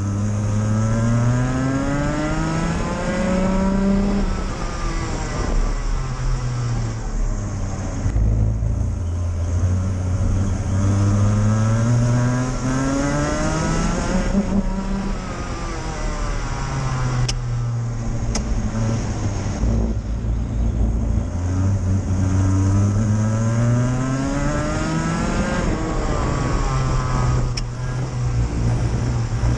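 Rotax Max Evo 125cc two-stroke kart engine heard onboard at racing speed, its pitch climbing as it accelerates along each straight and dropping as the driver lifts off for the corners, several times over.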